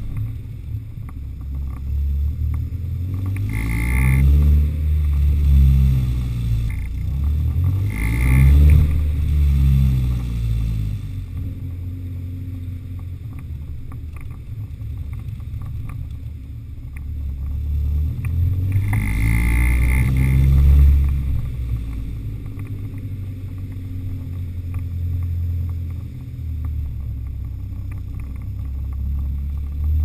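BMW E36 318is's M44 four-cylinder engine idling through a straight-through performance rear muffler, revved up and let fall back three times: twice close together early on, then once more a little past the middle.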